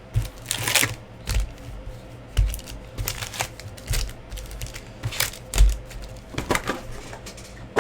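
Irregular clicks of typing on a computer keyboard.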